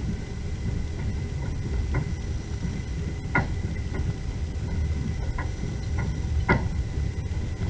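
Passenger train running on the rails, heard from inside the carriage: a steady low rumble with sharp clicks of the wheels passing over rail joints, several times, some in pairs about half a second apart.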